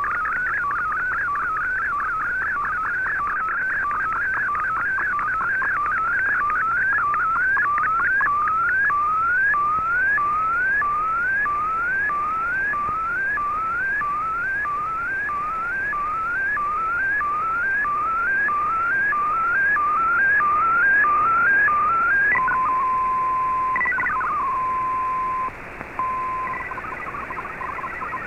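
Shortwave digital-mode picture transmission (Shortwave Radiogram's MFSK image) received on a communications receiver: a long run of evenly repeating rising chirps, about one and a half to two a second, as the image lines come in. Near the end the chirps stop for a steady tone, a quick falling glide and another steady tone, then the warbling MFSK data signal resumes.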